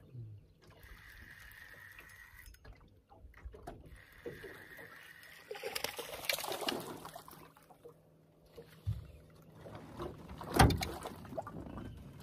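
Water splashing as a hooked bass is reeled up to the side of a small boat, with a splashy stretch about midway. Two sharp knocks follow near the end, the second the loudest.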